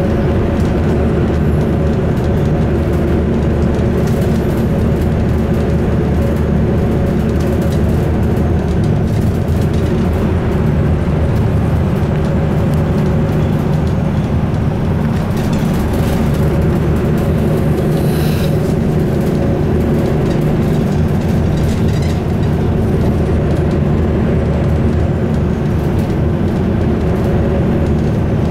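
Bus engine and road noise heard inside the passenger cabin while driving: a steady low rumble with a hum, and a few brief rattles midway.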